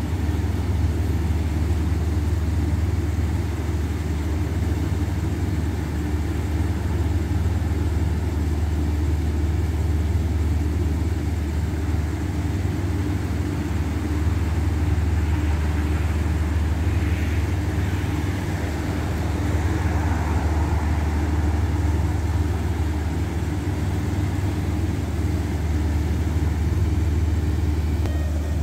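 A diesel passenger train idling at the platform: a steady, unbroken low engine hum.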